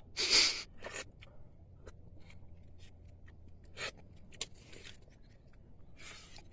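Raw sea urchin eaten by hand: a short slurp near the start as the roe is sucked from the fingers, then scattered faint clicks and scrapes of fingers working the spiny shell.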